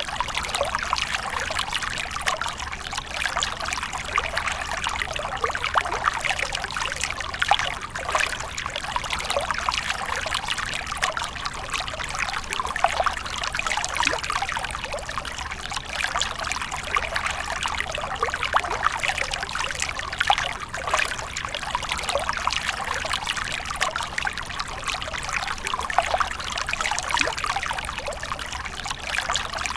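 Water splashing and trickling steadily, with a continuous dense patter of small splashes.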